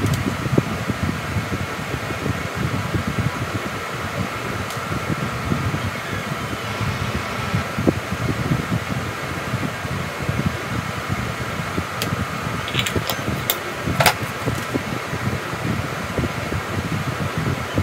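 Steady whir of a room fan running, with a few light clicks about two-thirds of the way through.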